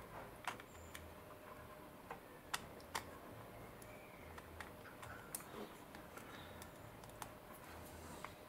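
Faint, scattered small clicks and taps, a dozen or so at irregular intervals, from a tool working glue residue off a model locomotive's body.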